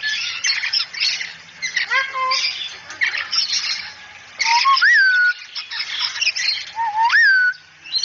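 Cockatoo screeching in short raspy bursts, with whistle-like calls that rise and then fall back, one about halfway through and one near the end.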